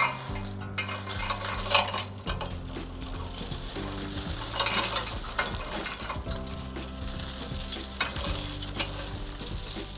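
Steel truck tire chains clinking and rattling in irregular bursts as they are handled and draped over a metal chain hanger. Background music with sustained notes plays underneath.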